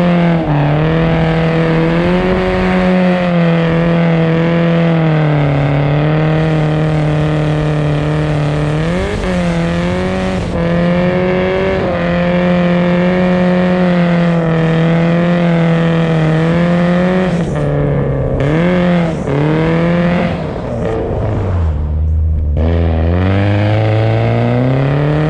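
BMW car engine held at high revs while drifting on ice, its pitch mostly steady with a few brief dips and rises. Near the end the revs fall away sharply, then climb again.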